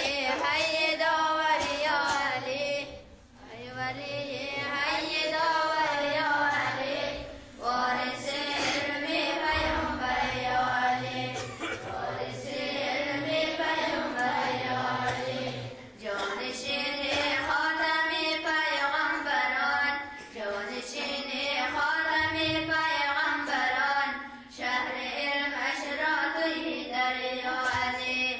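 Two girls singing a devotional chant together, in long melodic phrases of several seconds with short pauses for breath between them.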